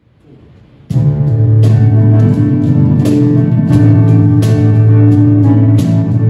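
A small band's instrumental intro starts about a second in: sustained keyboard notes and strummed guitar over steady cajon beats.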